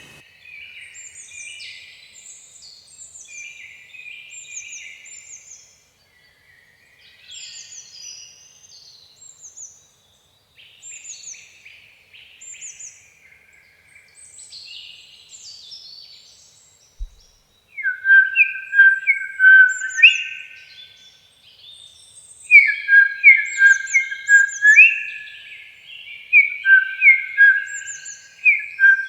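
Small songbirds singing, a mix of high, quick chirps and twitters. About 18 seconds in, a much louder bird starts singing rapid phrases of short, clear, repeated whistled notes.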